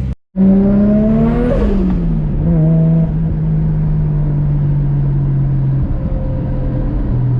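Nissan Skyline R33's turbocharged RB25DET inline-six accelerating briefly, its pitch rising for about a second and a half, then easing off and settling to a steady cruise.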